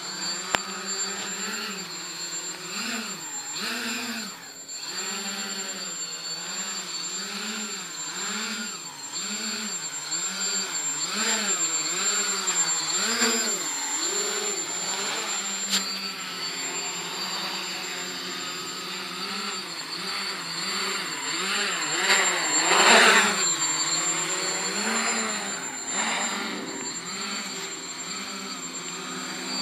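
Small quadcopter's electric motors and propellers buzzing in flight, their pitch wavering up and down constantly, with a steady high whine above. The buzz swells louder for a moment about two-thirds of the way through.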